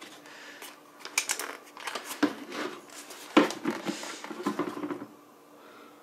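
Hard plastic clicking, rattling and knocking as a Proscenic 820S robot vacuum's dustbin is handled and its lid and catch are worked open by hand: a quick cluster of sharp clicks over about four seconds, the loudest knock about three and a half seconds in. The bin is tricky to open.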